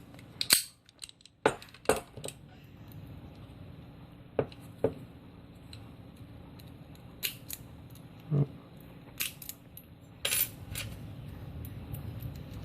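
Lock pick and tension wrench clicking in the keyway of a Master Lock No. 230 padlock as it is picked: a dozen or so sharp metallic clicks at irregular spacing, with a quick cluster near the end.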